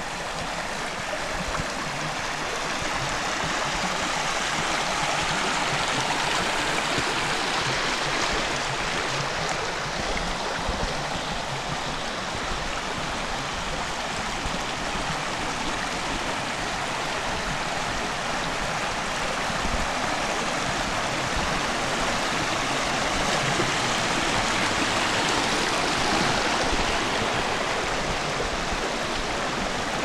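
Shallow rocky forest stream rushing and burbling over stones and small riffles in a steady, even wash of water sound that swells a little twice, about a quarter of the way in and again near the end.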